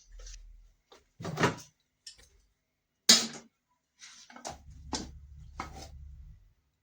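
A few scattered knocks and clatters of dishes and utensils being handled as food is plated, with a low rumble under the last cluster.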